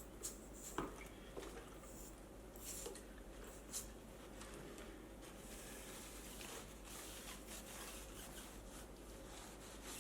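Faint rubbing and shuffling of a rubber inner tube and tyre being worked into place on a wheel rim by hand, with a few light clicks and knocks in the first four seconds.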